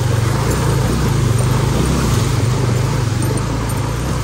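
Motorcycle engine running steadily under load while the bike rides through a stream crossing, with a steady rush of water and noise over it.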